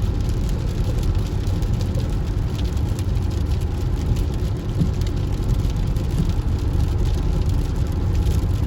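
Car driving steadily on a wet road in rain: a constant low rumble of tyres and engine, with faint light ticks over it.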